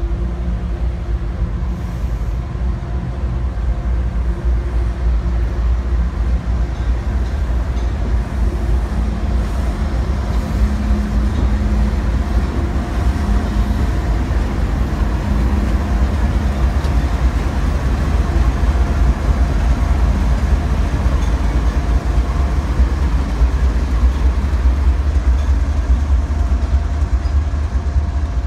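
CSX diesel-electric locomotives running light, their diesel engines giving a steady low drone with held engine tones as they roll slowly past.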